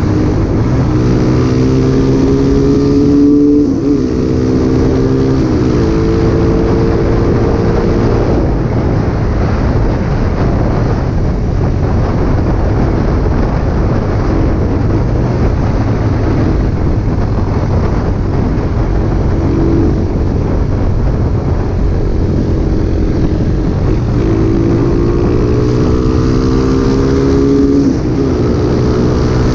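Rusi Macho 150 motorcycle's single-cylinder engine, running a 30 mm carburettor on an otherwise stock engine, accelerating through the gears. Its pitch climbs and then drops at gear changes about four seconds in and again near the end. Through the long middle stretch, heavy wind on the microphone covers the engine.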